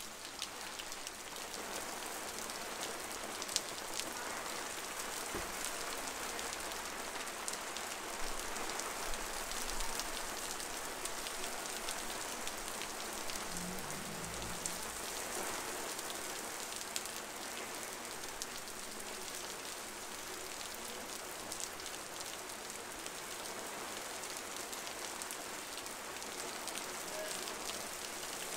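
Heavy downpour falling on a city street: a steady hiss with a dense patter of drops and scattered sharper drop hits.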